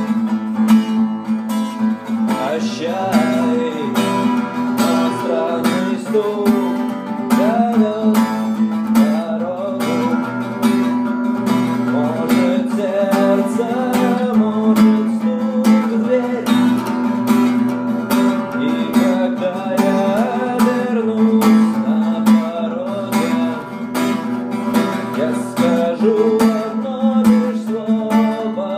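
Acoustic guitar strummed steadily, with a wavering melody line above it: an instrumental stretch of a song with no singing.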